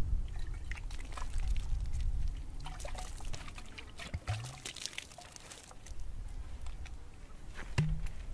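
Water poured from a dried gourd into a cupped hand, trickling and splashing in uneven spurts. Near the end there is a hollow knock as the gourd is set down on another gourd.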